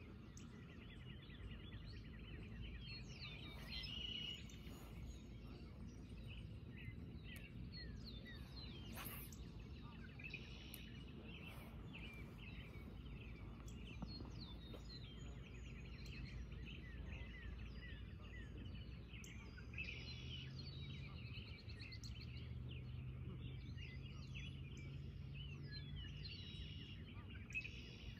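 Faint outdoor ambience: birds chirping again and again over a low steady rumble. A low hum joins about two-thirds of the way through.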